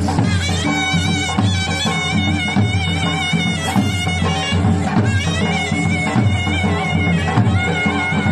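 Loud Gujarati devotional folk music for a Mataji dakla: drums beating over a steady low drone, with a wavering high melody line running over it.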